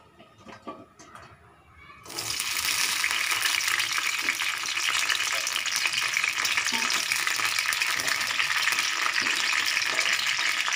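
Whole green chillies dropped into hot oil in a heavy kadai: after a few faint clicks, a sudden loud sizzle starts about two seconds in and carries on steadily as they fry.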